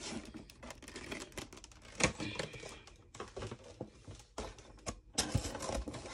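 Cardboard box and its packaging being handled as the contents are lifted out: irregular taps, clicks and rustles, with sharper knocks about two seconds in and again near the end.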